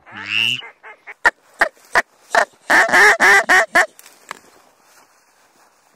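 Mallard hen quacking loudly: one drawn-out quack, then a quick run of shorter quacks that is loudest a little past the middle and stops about four seconds in.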